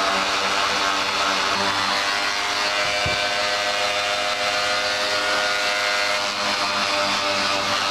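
Corded electric hand sander running steadily against a motorcycle fairing: a motor whine over the hiss of the abrasive pad grinding down Bondo body filler.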